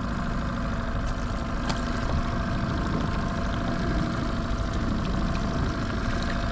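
Boat motor running steadily at trolling speed: a constant hum with a couple of held tones over a rushing low noise.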